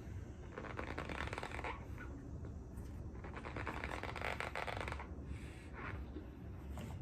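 Close-up chewing of a big mouthful of cornstarch: repeated squeaky, crackling crunches in clusters about every second.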